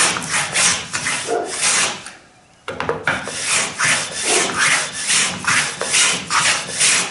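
Stanley No. 78 rabbet plane shaving the end of a clamped wooden plank in quick short strokes, about two a second, with a brief pause about two seconds in. The plank end is being thinned to a taper so that it lies flush with the next plank at the stem.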